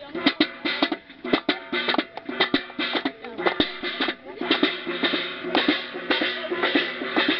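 Rhythmic hand clapping and a large metal basin beaten as a drum, sharp strikes several times a second in a steady dance rhythm.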